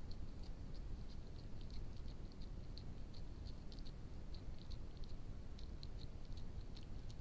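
Fox eating a slice of bread spread with honey: a run of small, irregular clicking and smacking sounds from its mouth, over a steady low rumble.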